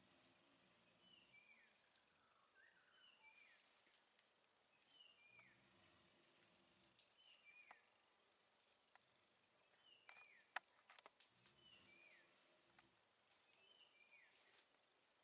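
Very faint forest ambience: a steady high-pitched insect drone, with short falling chirps repeating every second or two and one sharp click about ten seconds in.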